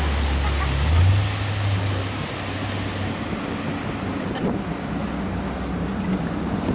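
Tow boat's engine droning over rushing water and wind on the microphone. The engine note rises briefly about a second in, then falls away as the boat slows, leaving a steady hiss of water and wind.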